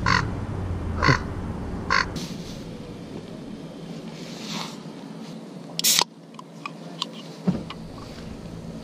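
A crow cawing three times, about a second apart. Later come a short hiss and a few sharp clicks from an aluminium drink can being handled.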